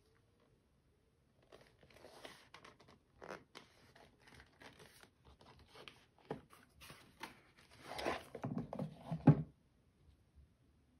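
Leather pistol holster being handled, the stiff leather rubbing and flexing with small clicks. Near the end an M1911A1 pistol is drawn out of it, the loudest part, ending in a sharp click.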